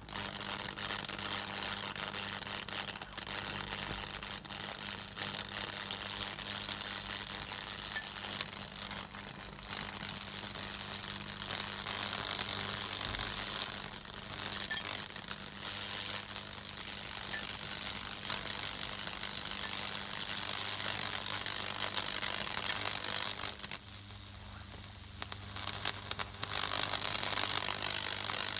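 High-voltage current from a microwave oven transformer arcing through wet wood as it burns a Lichtenberg figure: a continuous crackling sizzle over the transformer's steady mains hum. The crackle drops away for a couple of seconds about three-quarters of the way through, then comes back as loud as before.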